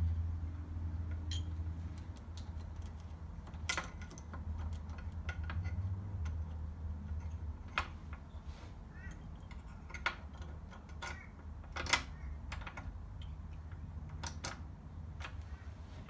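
Small metal parts clicking and clinking as a chain cover mounting bracket, spring washer and nut are fitted by hand onto a shaft on a cylinder mower's steel side plate: scattered light clicks, with a sharper clink about twelve seconds in. A low hum sits underneath and eases about halfway through.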